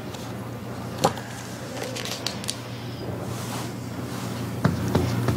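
Steady low hum of room tone in a small room, with a few scattered knocks and clicks: a sharp knock about a second in, some light clicks around two seconds, and two more knocks near the end.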